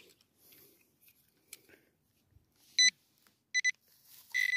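Metal-detecting pinpointer beeping in the dig hole, closing in on a buried coin. There are faint scrapes of soil, then short beeps about three seconds in, two quick ones after, and a longer beep near the end.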